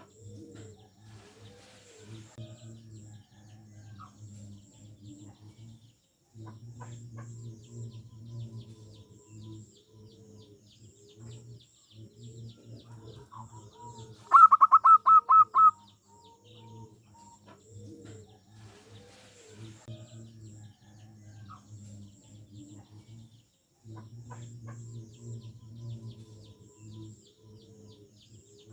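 Zebra doves (perkutut) cooing in a continuous run of soft, rolling, repeated phrases. About halfway through, a brief loud series of about six quick, higher notes cuts in.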